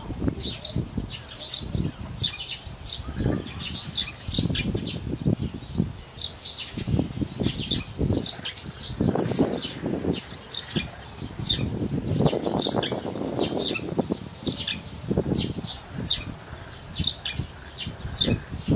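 Small birds chirping constantly in quick, short, high notes, over a low, uneven rumble.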